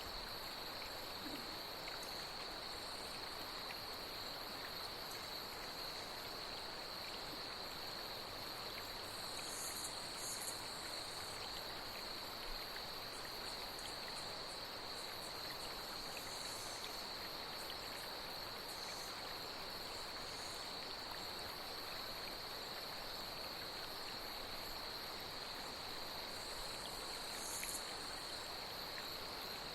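Night insects chirring in one steady high-pitched drone over the even rush of flowing water, with a few brief higher chirps standing out now and then.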